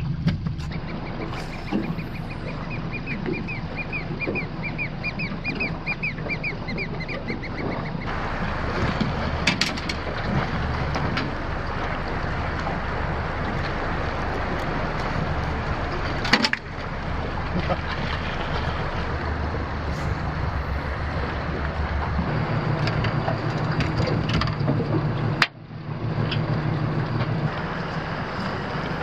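Boat's Yamaha 60 outboard motor idling under wind and water noise. A bird calls a rapid string of repeated notes, about two a second, for several seconds near the start.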